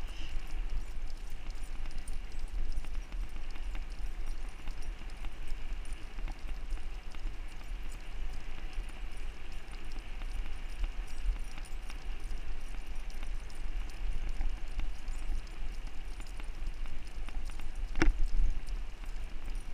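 Footfalls of two huskies running in harness on a paved trail, a steady patter, under a low rumble of wind on the microphone; one sharp knock about eighteen seconds in.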